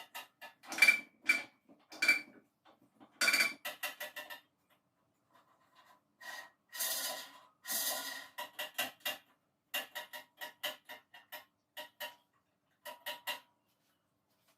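Metal parts being handled: clusters of sharp clicks and clinks, some ringing briefly, with a pause about five seconds in and again near twelve seconds.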